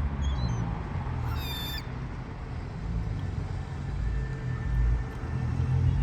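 A seagull gives one short, harsh call about a second and a half in, with fainter short calls just before it, over a steady low rumble.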